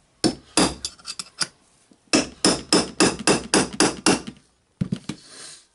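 Hammer blows knocking at the stuck piston cylinder inside the metal gear housing of a Dewalt D25831 rotary hammer drill. There is a quick run of sharp knocks, a short pause, then about ten steady blows at four to five a second and two more near the end. The cylinder has not come free.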